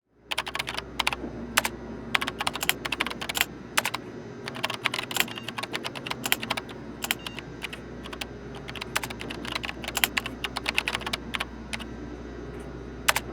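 Typing on a computer keyboard: quick, irregular runs of keystrokes with short pauses, over a low steady hum.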